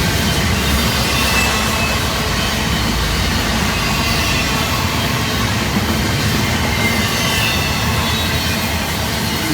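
Intermodal freight train rolling past: a steady, loud rumble of steel wheels on rail, with a faint high squeal from the wheels.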